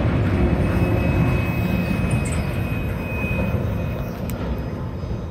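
Freight train of autorack cars rolling past on the rails, a steady low rumble that fades as the end of the train moves away.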